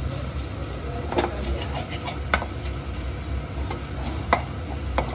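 A metal utensil knocks sharply against a cooking pan four times at uneven intervals, over a steady low hum.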